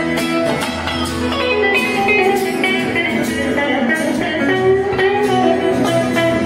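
Two guitars, acoustic and electric, playing music together live, with long held notes.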